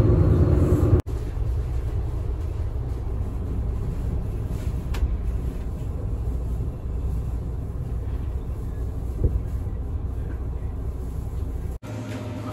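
Steady low rumble of a vehicle interior while riding, heard from a passenger seat, with engine drone louder in the first second. A small click about five seconds in and a light knock about nine seconds in.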